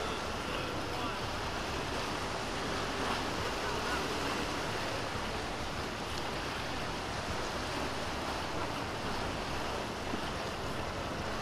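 Steady wind on the microphone over the wash of waves in a choppy sea.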